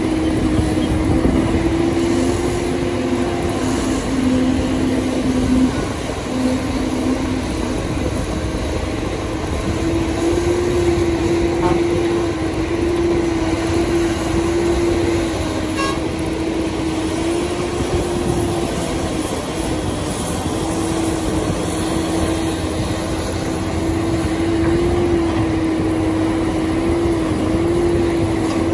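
Sumitomo SH300 hydraulic excavator working as it digs soil, its engine running steadily with one droning tone that shifts a little in pitch every few seconds.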